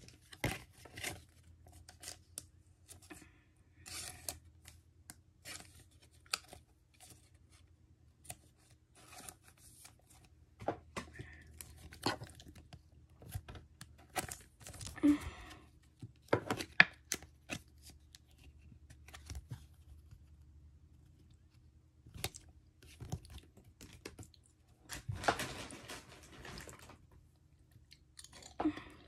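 Pokémon card booster pack being torn open and handled: scattered short tearing and crinkling noises of the foil wrapper and cards, with a longer stretch of tearing and rustling near the end.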